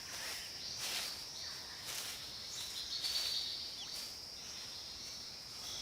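Forest ambience: insects keep up a steady high-pitched drone, with a brief buzzing trill midway and a few faint chirps.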